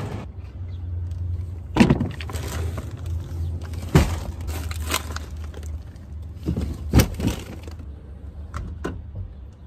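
Several sharp knocks and clunks a second or two apart over a steady low hum; the hum stops shortly before the end.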